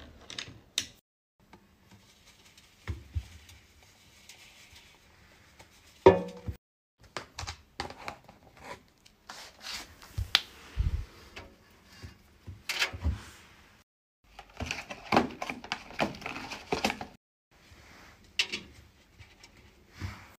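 Hands loading a front-loading washing machine: scattered clicks and knocks from the door and drum as detergent pods and laundry go in, with a sharp knock about six seconds in and a spell of rustling later on.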